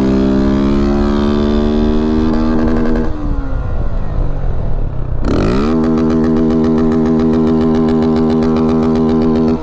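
Honda CG 160 Titan's single-cylinder four-stroke engine running loud through an aftermarket tin straight-through exhaust with no baffle, at speed. The revs climb a little, ease off about three seconds in, then pick back up sharply after a brief rush of noise about five seconds in and hold steady at high revs.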